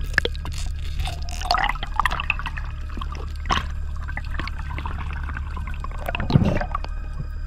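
Underwater bubbling and gurgling with scattered clicks and crackles over a steady low hum, as heard through an action camera's housing; a louder gurgle of bubbles about six seconds in.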